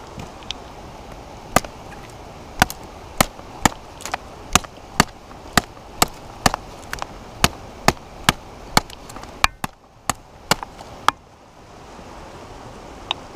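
Cold Steel Rawles Voyager folding knife, a large tanto blade, chopping into thin branches and a sapling: a string of about twenty sharp blade strikes on wood, roughly two a second and briefly quicker, stopping about eleven seconds in.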